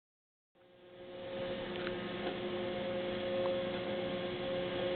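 A steady hum at a few fixed pitches, fading in over the first second, with a few faint clicks.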